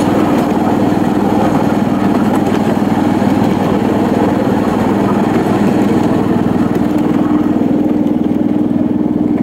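Small engine running steadily at an even pitch, its hum holding level throughout.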